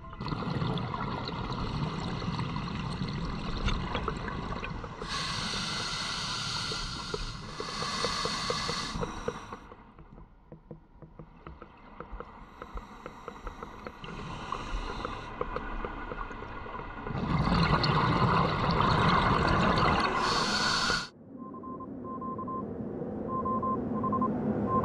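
Underwater noise picked up by a diver's camera: a steady hiss broken by bursts of bubbling from a scuba diver's breathing. There are two shorter bursts a few seconds in and a longer one in the second half, which cuts off suddenly.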